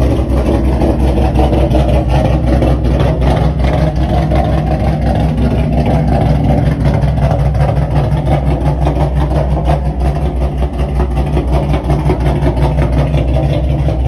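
Ford Mustang GT's 5.0 V8 idling steadily through an aftermarket full exhaust with an X-pipe, a cold air intake freshly fitted.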